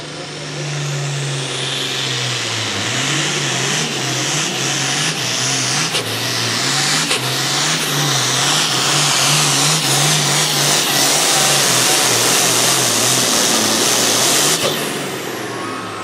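Hot farm pulling tractor's diesel engine running at full throttle under load, building over the first couple of seconds, holding with a wavering low engine note, then dropping off suddenly near the end.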